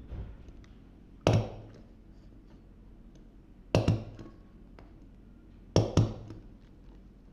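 Stapler opened out flat and pressed by hand, driving staples with sharp clacks: one stroke, then two strokes that each give a quick double clack.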